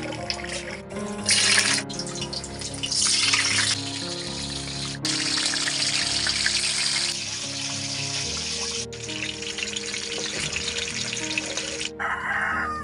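Stuffed bitter gourd rings deep-frying in a wok of hot oil: a sizzling hiss that starts and stops abruptly several times, strongest in the middle, over background music.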